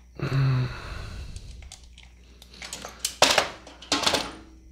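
A Vise-Grip wire stripper/cutter snips a piece of heat-shrink tubing near the start. Then comes tool and plastic handling noise, with two sharp bursts near the end as the tool is laid down among the plastic parts packages.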